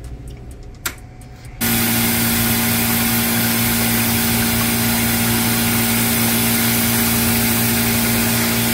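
Hoshizaki ice machine running in its ice-making cycle: a loud, steady mechanical hum with a strong low tone and a hiss of water splashing over the evaporator plate. It starts suddenly about a second and a half in, after a quiet hum and a single click.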